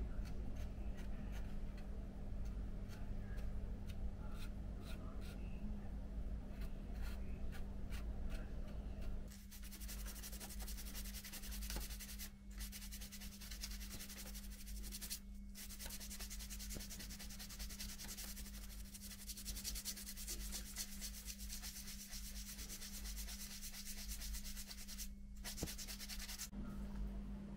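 A sanding sponge rubbed rapidly back and forth over putty on a plastic model hull, a dense scratchy hiss from about nine seconds in, stopping briefly three times. Before it, light clicks and scrapes of a metal spatula spreading putty.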